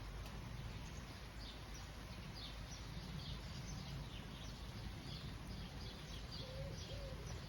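Steady rain falling, with birds chirping over it in short, repeated downward-gliding notes.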